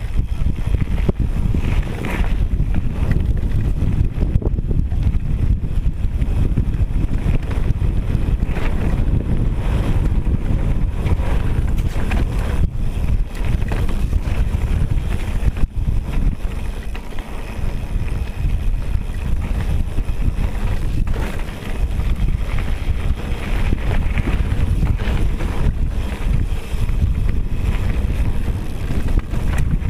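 Wind buffeting a GoPro's microphone during a fast mountain-bike descent, a steady heavy rumble. Mixed in is the irregular clatter of tyres and bike over loose gravel and stones.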